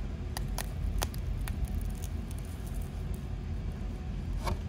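Steady low rumble of a car's cabin, with a few sharp clicks in the first second and a half and another near the end.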